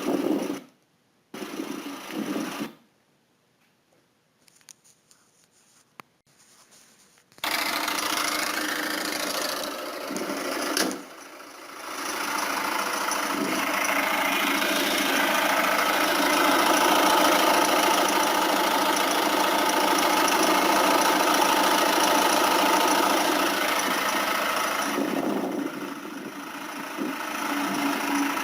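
Peugeot 1.6 HDi diesel engine running steadily, recorded to trace an engine noise. The sound drops out twice in the first seven seconds, comes back about seven seconds in, and dips briefly about eleven seconds in.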